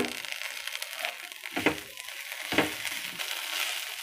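Chopped onion, green chillies, ginger and coriander leaves sizzling in hot oil in a kadai, with a spatula scraping and stirring through them about twice.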